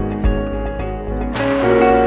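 Background music with sustained chords and a few sharp hits; the chord changes about one and a half seconds in.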